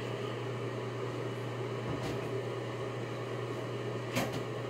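Steady low mechanical hum, with a faint click about two seconds in and a short knock about four seconds in.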